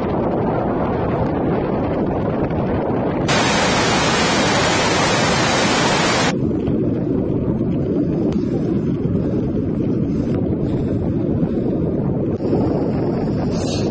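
Wind buffeting the microphone, a steady low rumble. For about three seconds a bright hiss cuts in and cuts out sharply.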